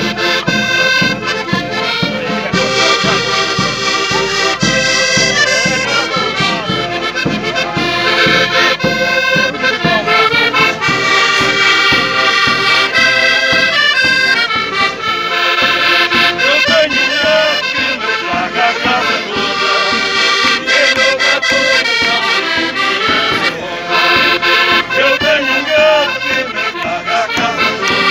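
Two button accordions playing a lively traditional folk tune together, with a bass drum beating a steady rhythm.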